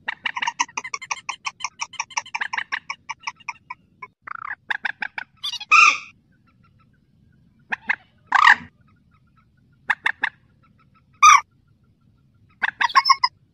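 Rail (mandar sawah) calling: a rapid run of about ten nasal notes a second for the first three seconds, then loud single calls and short clusters every second or two. This is a recording used as a lure call for hunting rails in rice fields and swamps.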